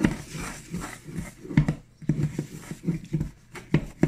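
Dry flour mix being stirred in a stainless steel mixing bowl, with short scraping strokes about three a second and a few sharper clicks as the utensil knocks the metal.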